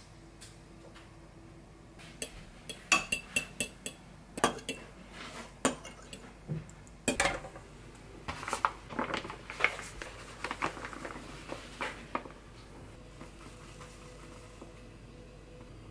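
Glass and ceramic kitchen bowls and a utensil clinking and knocking against each other and the counter while dough ingredients are combined: a run of sharp clinks, some ringing briefly, densest from about three to twelve seconds in.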